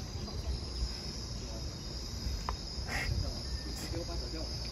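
Steady high-pitched insect buzzing, a chorus of insects such as cicadas, over a low rumble.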